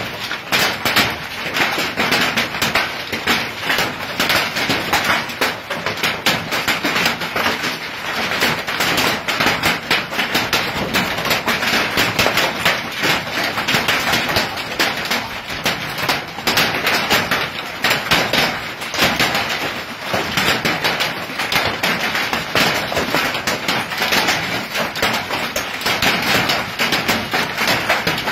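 Hailstorm: hailstones falling hard in a dense, continuous clatter of impacts on hard surfaces.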